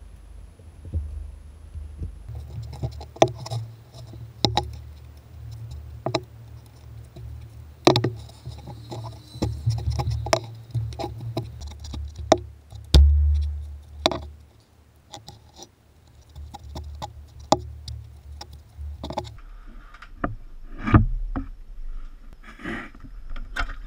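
Scattered metallic clicks and knocks of a ratchet and hand tools on the water pump bolts, over a low rumble, with one heavy thump about 13 seconds in.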